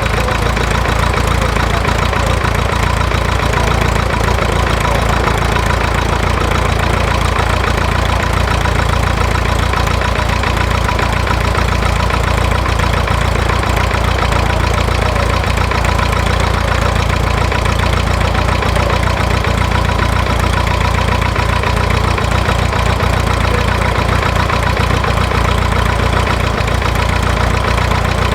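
Cessna 140's piston engine and propeller running steadily, held at one speed during a ground run.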